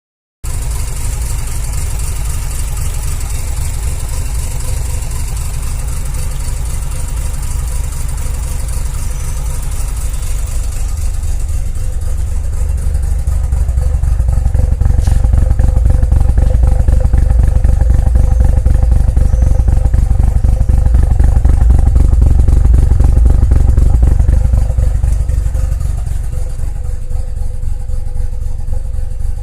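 Mazda RX-7 FD3S's twin-rotor 13B-REW rotary engine idling roughly, a sign of an engine fault that also sets the boost gauge needle shaking. It gets louder about halfway through and eases back near the end.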